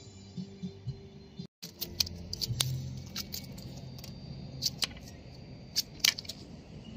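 Background music for about a second and a half, then a run of irregular sharp clicks and light metallic jingling taps, thickest about two to six seconds in.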